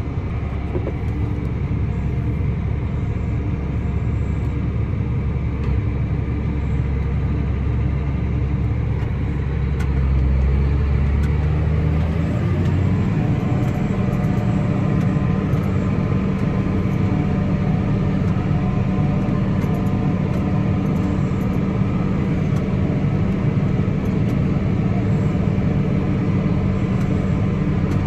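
Farm tractor's diesel engine heard inside the cab, working under load while towing a stuck tractor out of a soft field. Its pitch steps up about twelve seconds in as the revs rise, then holds steady at the higher speed.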